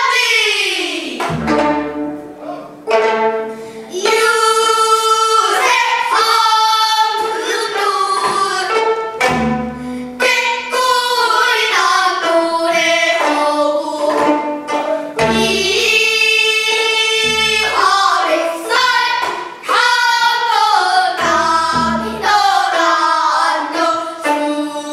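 Gayageum byeongchang: girls' voices singing a pansori melody while plucking gayageum, the Korean long zither, as their own accompaniment.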